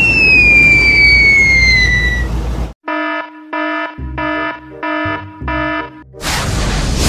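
An alarm-like beeper sounding five short, evenly spaced beeps at one steady pitch, each about 0.4 s long. Before it, a loud rushing noise with a whistle gliding down in pitch cuts off suddenly. Near the end a loud burst of noise sets in.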